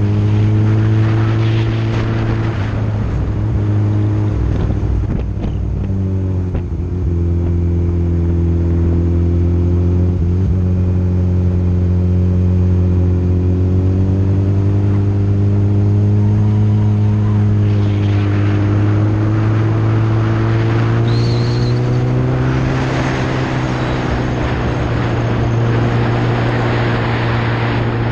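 Kawasaki ZX14 inline-four motorcycle engine running at steady road revs, its pitch dipping about six seconds in and then slowly rising and easing again through the curves. Wind rushes over the camera microphone, growing louder in the second half.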